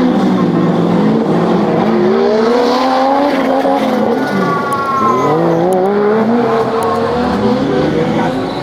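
Off-road 4x4 engine revving hard and easing off again and again, its pitch rising and falling, with a higher whine falling in pitch about four to five seconds in.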